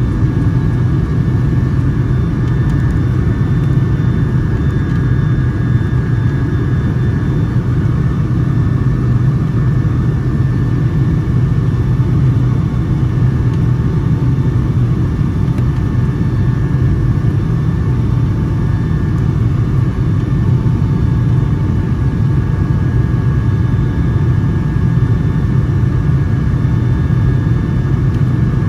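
Steady cabin noise inside a Boeing 757-200 airliner: a loud, even low rumble of engines and airflow with a few faint steady tones above it.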